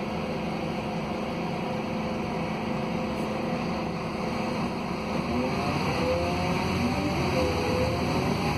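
Scania K280UB city bus under way, heard from inside the passenger cabin: its rear-mounted 280 hp Scania DC09 five-cylinder diesel running steadily. In the second half the sound grows slightly louder, and a whine comes in that rises and falls in pitch.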